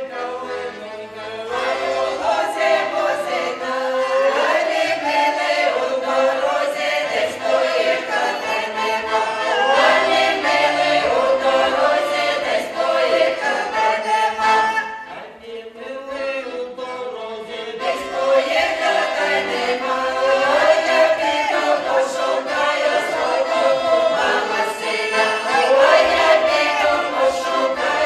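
Folk ensemble singing a humorous Ukrainian folk song in chorus, with a short break about halfway through before the voices come back in.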